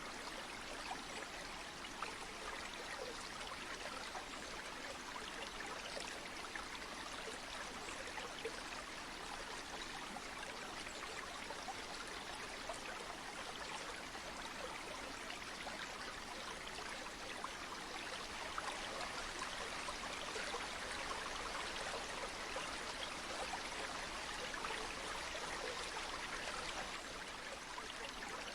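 A river or stream flowing steadily, a continuous wash of water with fine trickling and splashing, a little louder in the later part.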